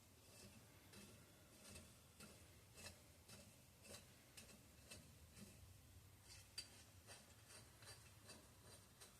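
Near silence with faint, scattered light clicks and rubbing of small metal parts being handled, about one or two clicks a second.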